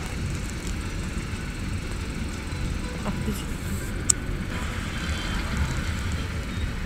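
Traffic noise from cars and a bus idling in a stopped traffic jam: a steady low rumble, with a single sharp click about four seconds in.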